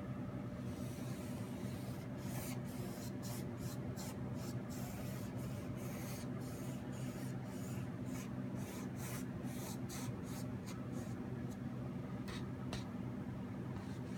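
Rapid scratchy brush strokes on a painting surface, about three a second, stopping near the end with a couple of last strokes. A steady low hum runs underneath.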